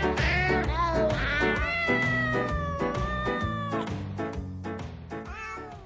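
Background music with a steady beat, mixed with cat meows. One long, slightly falling meow comes about one and a half seconds in. The music fades out toward the end.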